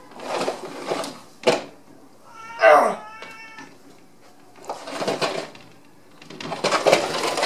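A cat meows once, loudly, a call that falls in pitch about two and a half seconds in, with a shorter cry right after. Around it come several bursts of a spoon scraping wet cat food out of a tin can, with a sharp tap about one and a half seconds in.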